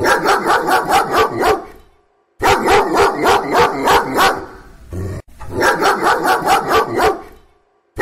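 A dog barking in quick runs of about eight barks, three runs in a row with short silent gaps between them; a brief low thump comes between the second and third runs.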